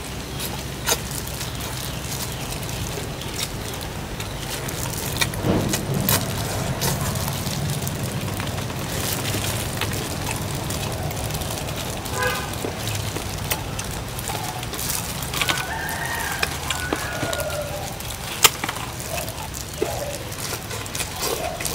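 A rooster crowing, one drawn-out call of about two seconds, with a shorter pitched call a few seconds before it. Under it runs a steady low hum with scattered sharp clicks, the loudest click coming just after the crow.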